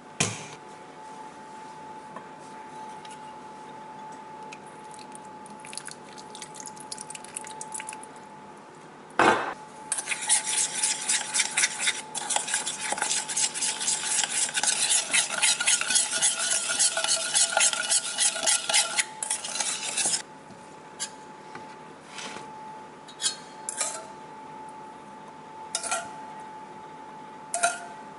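A metal spoon stirring honey into a jerk spice rub in a stainless steel mixing bowl: a sharp knock, then about ten seconds of fast, steady scraping and clinking strokes against the bowl. Later come a few light clinks of the spoon on the bowl, over a faint steady hum.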